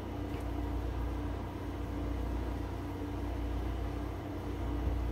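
Steady room tone: a low, even rumble and hum with a faint constant tone and light hiss.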